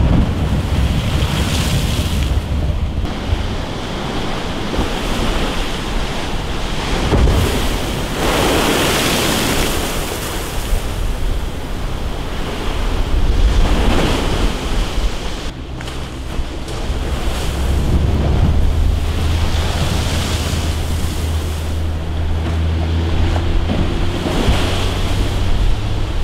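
Heavy storm surf from an offshore hurricane crashing against a concrete seawall, waves breaking and throwing spray in surges that rise and fall every few seconds. Wind buffets the microphone underneath as a steady low rumble.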